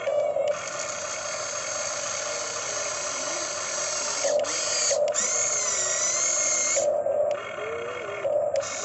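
Electric motors of a radio-controlled model excavator whirring in several stretches, their pitch wavering as they work.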